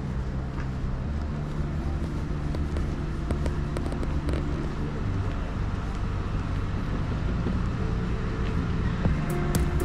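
A steady low engine hum, with a run of sharp clicks near the end.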